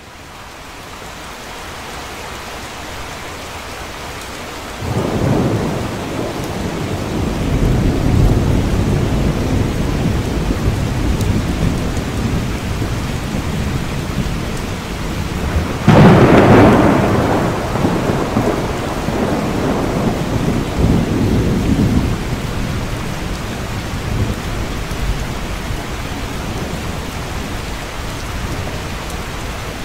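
Heavy rain falling steadily, fading in at the start, with two rolls of thunder: a low rumble beginning about five seconds in, and a louder, sharper clap about sixteen seconds in that rumbles on for several seconds.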